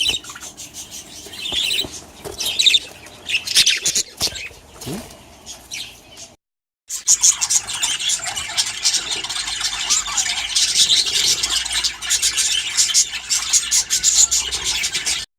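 Budgerigars chirping and chattering: scattered calls at first, then after a brief break a dense, continuous chatter from many budgies at once.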